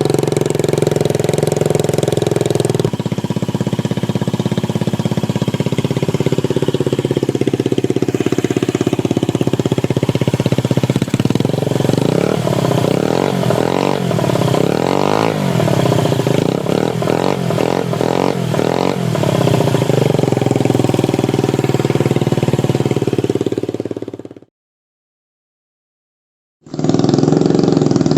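Honda Ruckus scooter's 49cc four-stroke single running through a Leo Vince aftermarket exhaust, held steady at first and then blipped in a string of quick revs that rise and fall back. Near the end the sound cuts out completely for about two seconds, then the engine note returns.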